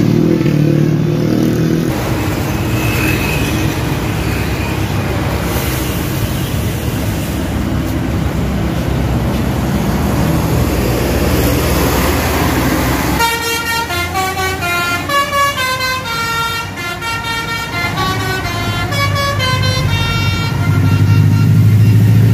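A passing bus's engine and road noise, then, about 13 seconds in, its telolet basuri multi-note musical horn plays a quick tune of stepped notes for about eight seconds. A low horn or engine drone sounds near the end.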